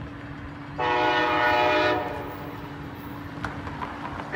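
Train horn sounding one blast of about a second, beginning about a second in, with the next blast starting at the very end. A steady hum runs underneath.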